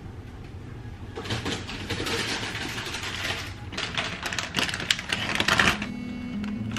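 Plastic food packets crinkling and rustling as they are handled, a run of quick irregular crackles.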